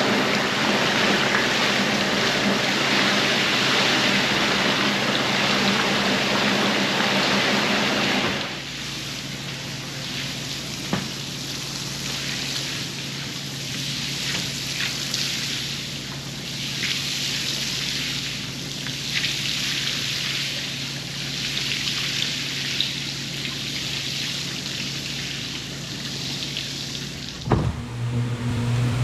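Rug-washing equipment: a motor runs with a steady hum under a loud hiss of water spray. About eight seconds in, the hiss drops and then swells and fades about every two seconds. A sharp knock comes near the end.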